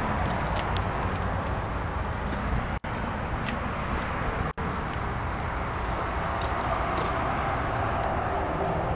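Steady outdoor background noise with a low rumble, cutting out briefly twice, about three and four and a half seconds in.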